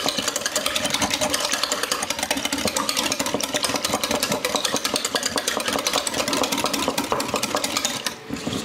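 Wire whisk beating a liquid maple-syrup glaze in a glass bowl, its wires clicking rapidly against the glass in a fast, even rhythm that stops near the end.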